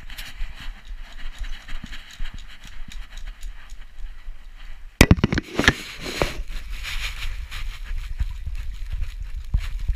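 A dog moving about with a GoPro strapped to her: the camera housing rubbing and knocking against her, with clicking footsteps, and a sharp loud knock about five seconds in.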